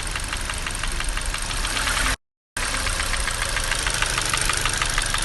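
Hyundai/Kia G4NA 2.0-litre four-cylinder engine running with a fast, even tapping from the top of the engine, near cylinder one and the exhaust camshaft. The knock persists with a new timing chain and cam phaser already fitted. The sound cuts out briefly about two seconds in.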